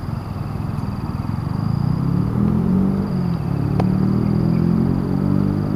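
An engine running nearby, growing louder over the first two seconds and then holding steady, with a single sharp click about four seconds in.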